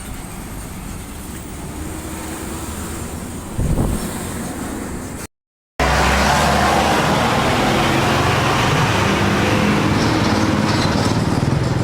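Road traffic with heavy diesel trucks going by: engine noise and tyre roar. About five seconds in, the sound cuts out for half a second. It comes back louder, with a truck engine running close by.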